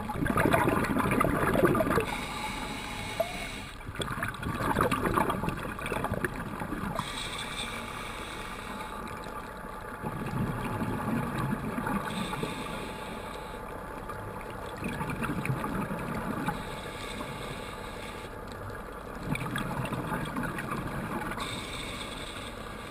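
Scuba diver breathing through a regulator underwater: five gurgling bursts of exhaled bubbles, about every four to five seconds, with a softer hiss of inhalation between them.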